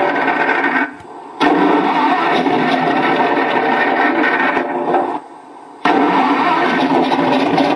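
Looped fire-burning sound effect, the 'tank destroyed' sound, playing through a small loudspeaker from a DIY pair of sound cards. It cuts out suddenly twice for about half a second and picks up again.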